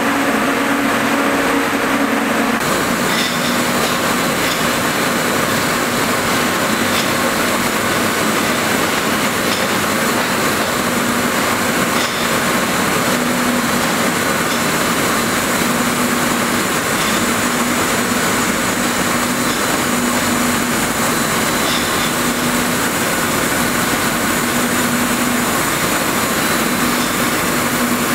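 Ring spinning frames with compact spinning suction attachments running: a loud, steady hiss of many spindles with a steady hum underneath. The hum shifts slightly a little over two seconds in.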